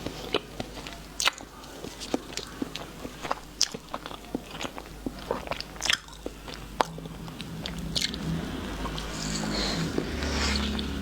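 Close-miked biting and chewing of fresh pineapple: a string of sharp, crunchy wet clicks, giving way to steadier chewing noise near the end.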